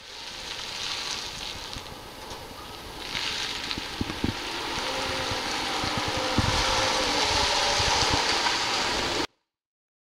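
Outdoor ambience: a steady hiss with wind buffeting the microphone in low thumps, growing louder over the last few seconds before cutting off suddenly.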